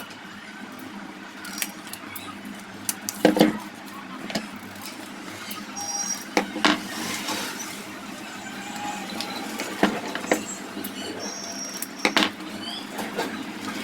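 Scattered sharp knocks and clinks, four or five of them spread a few seconds apart, from hand work on a table fan's motor parts, over a steady background hum of noise.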